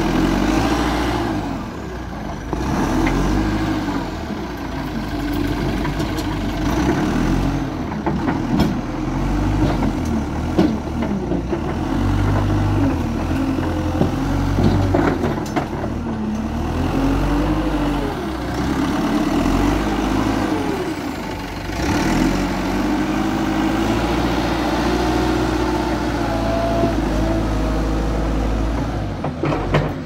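Backhoe loader's diesel engine running under load, its revs rising and falling again and again as the hydraulics work the bucket, with a few sharp knocks from the bucket and rubble.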